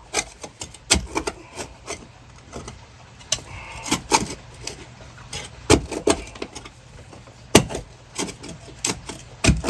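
A shovel digging into wet ground: irregular knocks and scrapes, a few sharper strikes, over a steady low hum.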